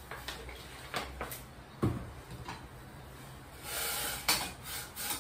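Scattered knocks and clinks of cookware being handled at the stove, a bottle, spoon and steel pot, with one heavier knock about two seconds in and a brief hissing rush of noise with a sharp clink about four seconds in.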